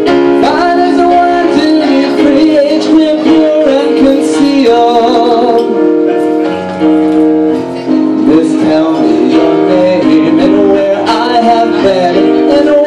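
Live singing of a slow ballad over sustained keyboard chords, the voice holding long, wavering notes.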